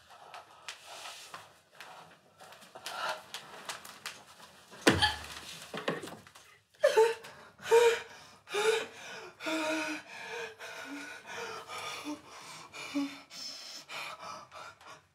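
A girl's heavy, gasping and panting breaths, with a loud sudden gasp about five seconds in, turning into a series of short pitched cries roughly once a second.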